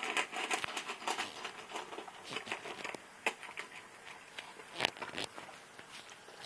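Dog eating from its food bowl: a busy run of crunching and small clicks, thinning out after about three seconds, with a few sharper clicks near the end.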